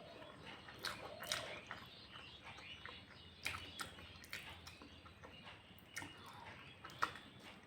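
Someone eating egg curry and rice: faint chewing with scattered wet mouth smacks and sharp clicks, the loudest about seven seconds in.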